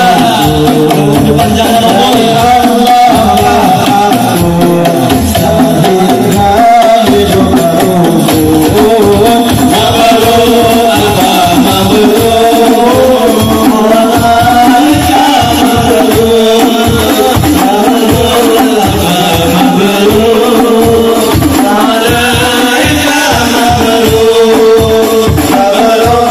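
A hadroh ensemble performing sholawat: several men singing a devotional melody into microphones over rebana frame drums with jingles, which beat a fast, steady rhythm. The voices and drums are amplified through a PA system.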